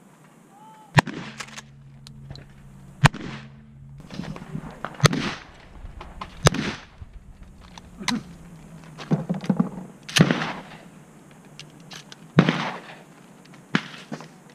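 Shotgun shots: sharp reports, the loudest about a second in, three seconds in, ten seconds in and twelve seconds in, with fainter shots between them.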